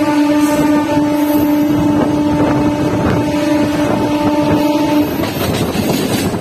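Electric suburban train's horn held on one steady note, cutting off about five seconds in, over the continuous rumble and rush of an EMU local train running at speed, heard from its open doorway.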